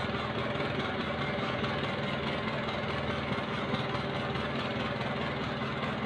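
Outrigger boat's engine running steadily with an even pulse while the boat is under way.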